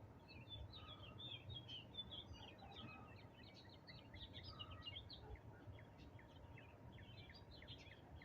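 Faint birdsong: many small birds chirping and twittering in quick, overlapping calls, over a low background hum.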